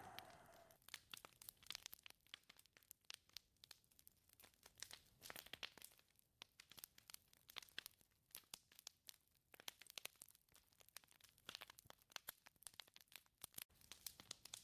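Faint, irregular crackling and ticking in a lull between wind gusts; a whistling gust dies away in the first second and another begins to build near the end.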